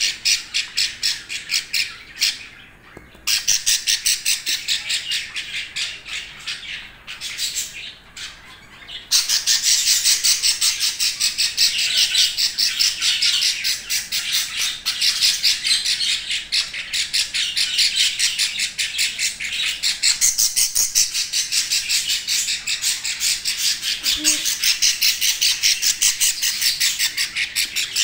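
Baby budgerigars squawking in a rapid, harsh, high-pitched string of calls, with short lulls in the first nine seconds and then unbroken.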